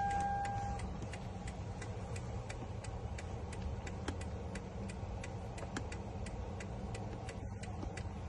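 A single short electronic beep, then a steady run of light ticks, about three to four a second, over a low steady hum.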